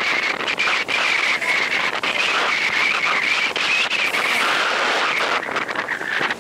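Wind buffeting the camera microphone on a sailing yacht under way, a loud steady rush with dense crackling pops, over the hiss of water along the hull.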